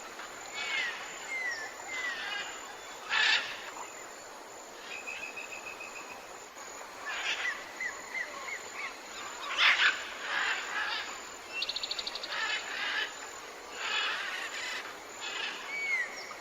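Jungle ambience of many birds calling over a faint steady hiss: short slurred whistles repeated in runs, a fast trill, and harsher rasping calls, with a quick run of about a dozen sharp notes a second about two-thirds of the way through.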